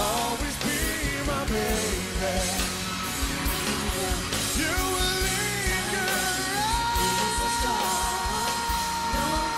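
Rock band arrangement of a pop ballad with a male lead singer's wordless vocal runs over a steady drum beat; about two-thirds of the way through, a long high note comes in and is held.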